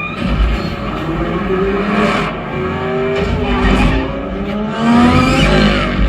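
Film race-scene sound effects played back through a soundbar system: several car engines revving, their pitch gliding upward, with tires squealing and heavy bass hits.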